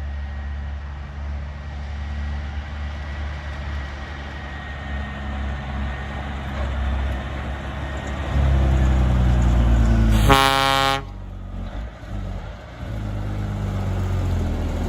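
Heavy truck engine running, growing louder about eight seconds in, then a single short honk of the truck's horn about ten seconds in.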